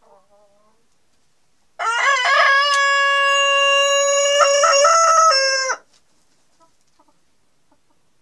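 A Denizli rooster crowing once, a long drawn-out crow of about four seconds: a few quick rising notes, then a long held note that breaks and shifts slightly just before it cuts off.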